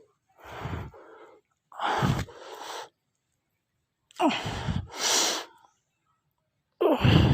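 A man breathing forcefully: four heavy, breathy exhalations or blows, each about a second long, with short silences between.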